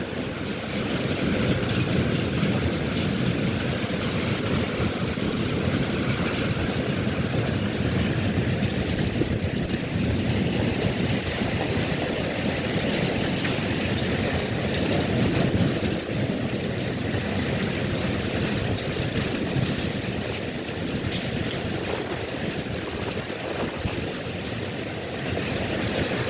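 Storm: heavy rain and wind making a steady rushing noise, with wind rumbling on the microphone.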